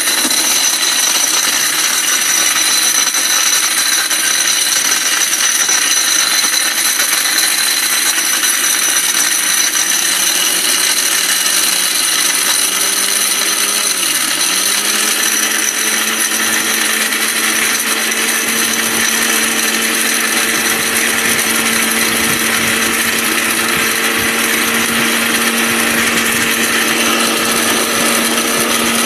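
Ricco 1000-watt mixer grinder running at full speed, grinding hard dried turmeric root to powder in its stainless steel jar: a loud, steady whir and grinding. Partway through, the motor's pitch dips briefly and then holds steady.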